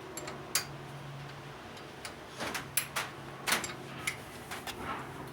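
Scattered light clicks and knocks of hand tools and brake parts being handled during a front brake pad job, a quick run of them in the middle, over a faint low hum.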